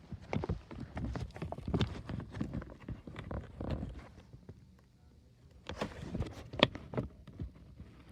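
Fireworks going off: irregular pops and crackles, with a short lull about halfway and a few sharper bangs just after it.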